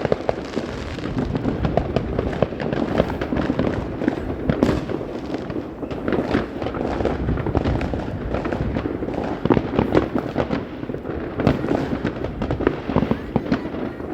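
New Year fireworks going off in dense numbers: a continuous crackle and rumble of many overlapping bangs, with louder single reports standing out now and then.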